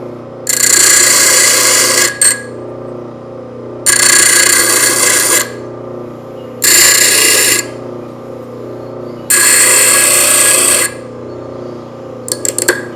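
Homemade grinder, an old air compressor's electric motor with a grinding wheel, running with a steady hum while a piece of metal is pressed to the wheel four times, each a harsh grinding rasp of one to two seconds. A few quick short scrapes come near the end.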